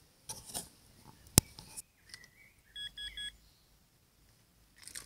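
Metal detector giving three short, quick beeps about three seconds in, its signal that a metal target lies under the search coil. Before them come some rustling and a single sharp click about a second and a half in.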